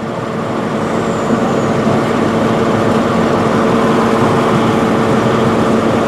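Class 170 Turbostar diesel multiple unit running into the station, its underfloor diesel engines giving a steady drone with a low hum that slowly grows louder.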